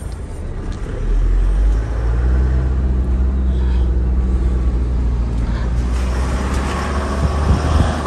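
Isuzu V-Cross pickup's diesel engine running with road noise as it drives over a rough off-road track: a steady low drone that grows louder about a second in.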